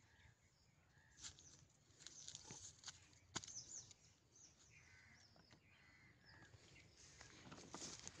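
Near silence with faint bird chirps and the soft rustle and tap of fruit being picked up off dry, leaf-strewn ground, one sharper tap a little over three seconds in.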